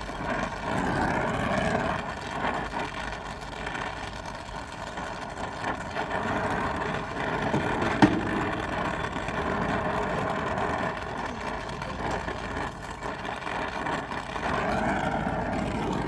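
Refrigerant recovery machine running steadily, pulling the charge out of an air-conditioning system, with a single sharp click about halfway through.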